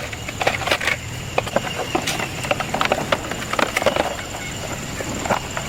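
Irregular sharp clicks and light knocks, as of hand tools and parts handled during a motorbike repair, over a steady high-pitched whine.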